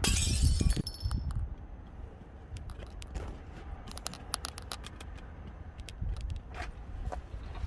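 A rattly burst at the start, then scattered light clicks and clinks of small hard objects being handled, over a steady low rumble of wind buffeting the microphone.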